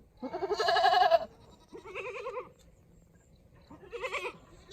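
A goat bleating three times, each call wavering in pitch. The first bleat is the loudest and lasts about a second; two shorter ones follow, at about two seconds and about four seconds in.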